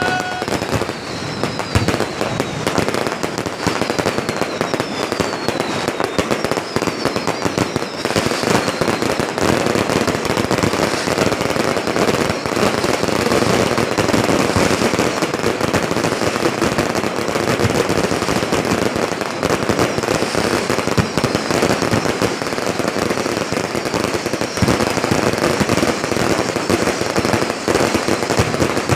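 Fireworks display: a dense, continuous crackling and popping of bursting shells, with faint falling whistles over the first several seconds.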